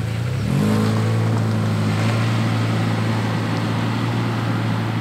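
Mitsubishi Delica D5's 2.4-litre engine pulling away. Its pitch rises a little about half a second in, then it runs steadily.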